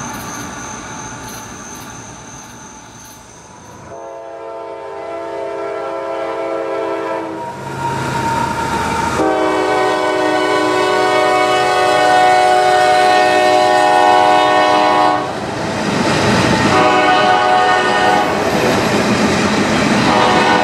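Rolling rail noise of a passing freight train fades away, then about four seconds in a CSX freight locomotive's multi-chime horn sounds a chord in a series of blasts: two long ones, then shorter ones, growing louder as the train approaches.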